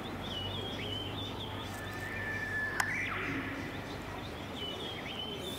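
Small birds chirping: many short, high chirps repeat throughout, with a longer whistled note near the middle ending in a single sharp click, over a steady low background hum.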